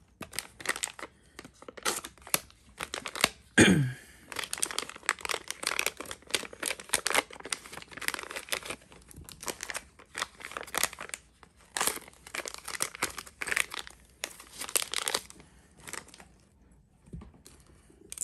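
Plastic packaging crinkling and tearing as black plastic wrappers are slit open with a pocket knife and handled, in quick irregular bursts with a lull near the end.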